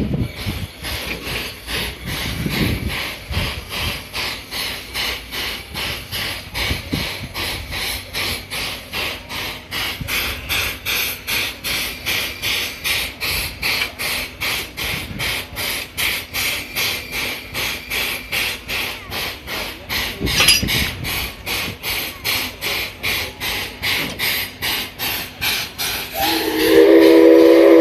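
C11 steam locomotive hissing steam in a steady pulsing rhythm of about two pulses a second as it stands on the turning turntable. Near the end its steam whistle starts blowing loudly with several tones at once.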